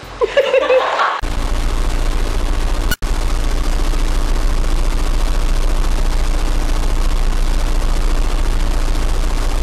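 A short burst of laughter, then from about a second in a loud, steady hiss of dense crackling static. It drops out for an instant about three seconds in.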